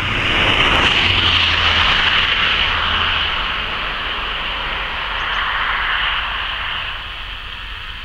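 Steady roar of an aircraft passing overhead, loudest in the first few seconds and slowly fading.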